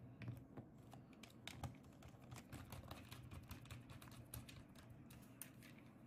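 Light, irregular clicks and taps of a precision T5 screwdriver and fingers on a laptop's aluminium bottom cover as its screws are put back in.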